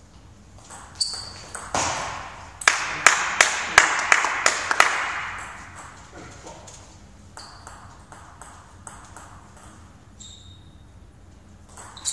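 Table tennis rally: the ball clicks off bats and table about three times a second for a few seconds, with a few short high squeaks. It ends in scattered single clicks and the next rally starts near the end.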